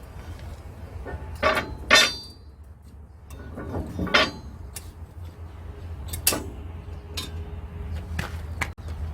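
Metal clanking and knocking from work on truck suspension parts: several sharp clanks, a few with a short metallic ring and the loudest about two seconds in, over a steady low hum.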